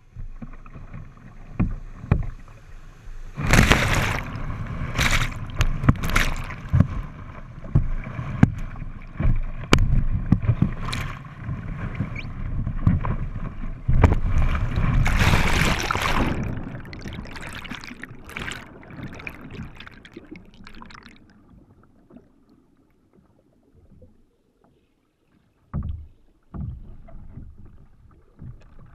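White water rushing and splashing over a kayak's bow and its bow-mounted camera as the kayak runs a rapid chute, with repeated loud splashes through the first half. The sound then fades and turns muffled as the camera goes under water, with a short thump near the end.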